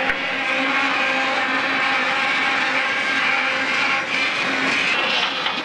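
Passenger river boat's engine running steadily under way, mixed with a steady hiss of wash and air.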